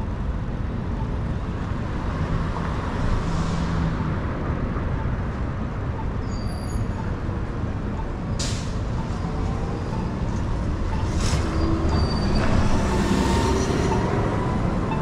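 City street traffic heard over steady rumbling wind on a moving microphone, with two short hisses about eight and eleven seconds in.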